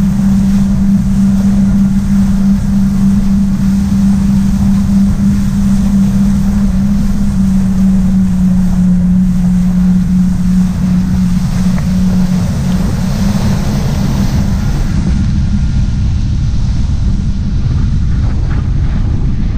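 Yamaha jet ski engine running at speed, a steady hum under heavy wind buffeting on the microphone. About two-thirds of the way through the engine's hum drops away, leaving mostly wind and water noise.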